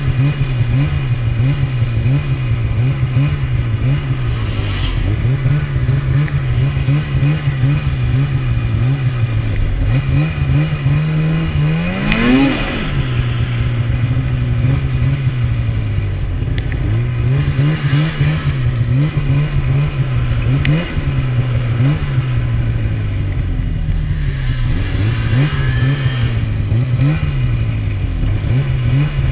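Polaris Rush 800 snowmobile's two-stroke twin engine running under way, its pitch rising and falling again and again as the throttle is worked. About twelve seconds in it revs up sharply.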